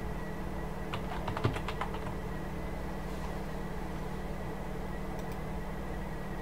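Computer keyboard typing: a quick run of about half a dozen keystrokes about a second in, over a steady low electrical hum.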